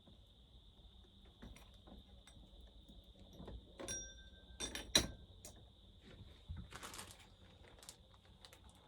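Small metal parts and tools clinking and rattling as they are rummaged through on a workbench, with a few ringing metallic clinks about four to five seconds in, the loudest near five seconds.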